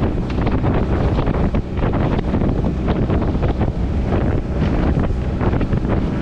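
Wind buffeting the microphone on a small open boat under way, over a steady low outboard-engine hum, with water splashing against the hull.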